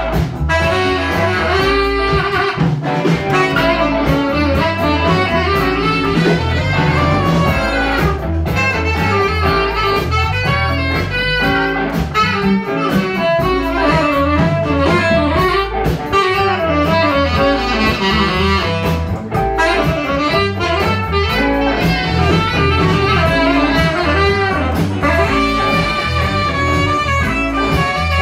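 Live blues band with a saxophone playing over electric guitars, electric bass and a drum kit, a steady groove throughout.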